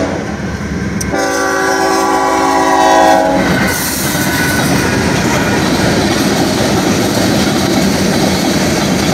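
Locomotive air horn blowing a chord, a blast cut off just at the start and then a long blast of about two seconds. The train then passes over the grade crossing with a steady rumble and clatter of wheels on rail.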